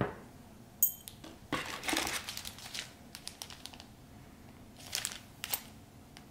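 Small plastic zip bag of mounting screws and parts crinkling as it is handled, in two spells, with a short clink of metal parts about a second in.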